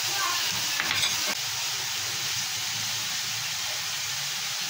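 Food frying in hot oil in a pan on a gas stove, a steady sizzle, with a few light clicks about a second in.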